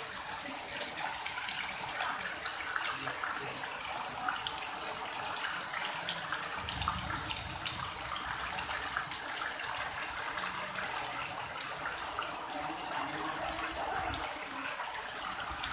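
Heavy rain falling steadily on paving: a dense, even hiss with many individual drops ticking through it.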